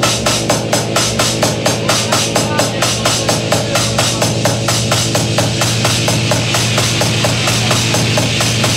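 Electronic dance music from a DJ set over club speakers: a steady, fast drum beat over a held bass line, the beat's strokes softening near the end.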